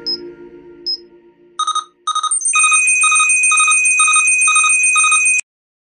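An electronic ringing tone like a telephone ringtone, a rapid pulsing ring over a steady high tone, which starts about one and a half seconds in and cuts off abruptly near the end. Before it, the tail of a music sting fades out.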